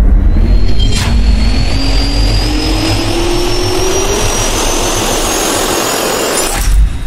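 Jet-engine spool-up sound effect: a loud rushing turbine with a whine that climbs steadily in pitch. There is a sharp hit about a second in, and the sound cuts off abruptly near the end.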